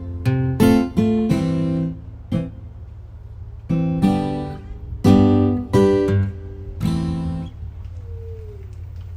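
Acoustic guitar music: strummed chords that stop about three-quarters of the way through, leaving a low steady hum.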